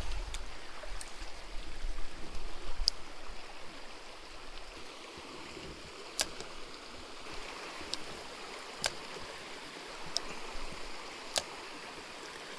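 Small rocky mountain creek flowing steadily over stones. A few dull bumps come in the first three seconds, then about six sharp clicks are scattered through the rest.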